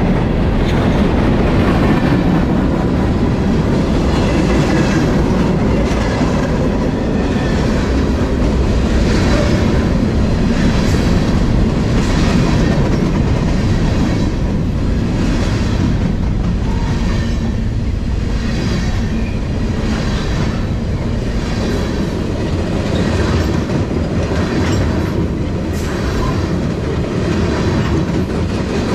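Freight train's covered hoppers and tank cars rolling past close by, a steady rumble of wheels on rail with repeated clicks roughly once a second from the wheels crossing rail joints.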